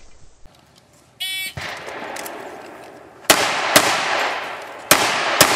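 An electronic shot-timer start beep about a second in, then four pistol shots in two pairs, the shots in each pair about half a second apart.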